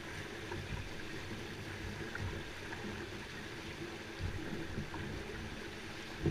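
River rapids rushing and churning beside a canoe, a steady roar of whitewater.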